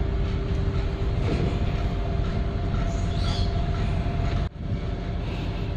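Steady low rumble with a constant hum from the ship's engines and machinery, heard on the bridge while the ship is under way. It drops out for an instant about four and a half seconds in, then carries on slightly quieter.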